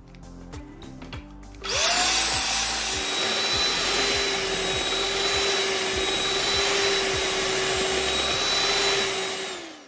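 Electric mixer switched on about two seconds in, its motor whine rising as it spins up and then holding steady as it creams butter and sugar. It winds down and stops just before the end.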